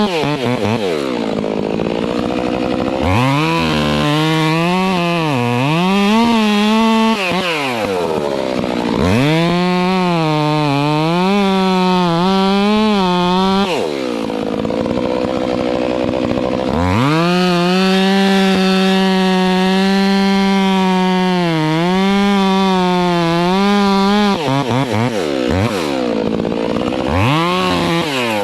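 Stihl MS 362 two-stroke chainsaw cutting into a tree at full throttle, its pitch sagging and wavering under load. The throttle is let off to near idle several times between cuts, then revved back up.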